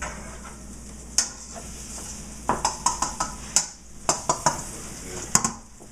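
Kitchen utensils clinking and knocking against dishes and cookware in a series of short, irregular clatters.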